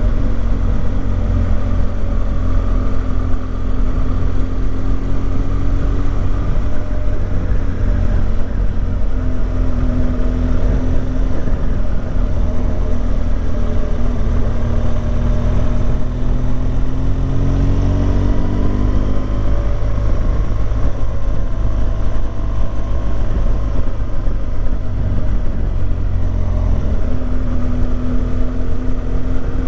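Motorcycle engine running at road speed under a heavy, steady low rumble. Its pitch climbs for a few seconds, then drops back about two-thirds of the way through.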